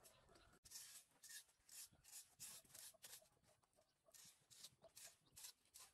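Faint, quick scraping strokes of a metal rake dragging leaves, twigs and grit across a concrete surface, about two or three strokes a second.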